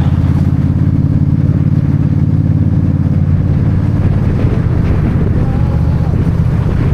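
Vehicle engine running steadily at a constant speed, with a slight change in its note about four seconds in.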